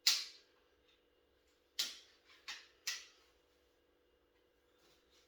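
Anglo Arms 50 lb pistol crossbow being shot and handled: a loud, sharp snap right at the start, then three shorter, sharp clacks about two to three seconds in.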